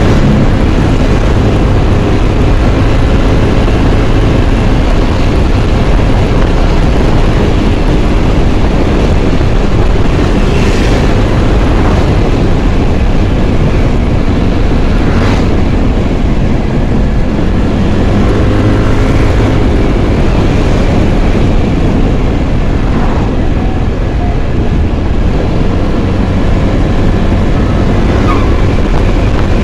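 Loud steady wind rush on the microphone with engine and road noise from a Yamaha scooter riding at speed. Other vehicles pass now and then, a truck going by near the end.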